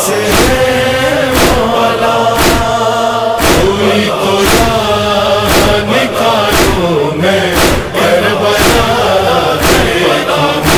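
Male chorus chanting the refrain of an Urdu noha lament in sustained, wavering lines. A thump about once a second keeps the beat, in the manner of matam chest-beating.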